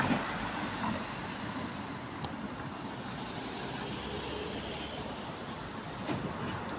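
Steady hum of distant road traffic, with one short sharp click about two seconds in.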